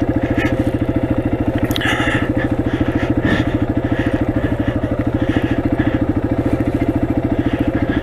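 Motorcycle engine running at a steady speed, its exhaust pulsing evenly, with a couple of brief clicks over it.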